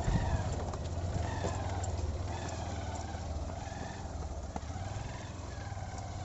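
Hero Ignitor motorcycle's 125 cc single-cylinder engine running steadily with a low exhaust note as the bike pulls slowly up a loose gravel slope.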